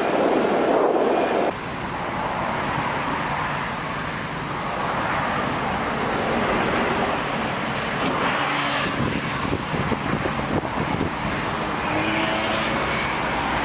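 Steady vehicle or heavy-machinery engine and road noise, changing abruptly about a second and a half in.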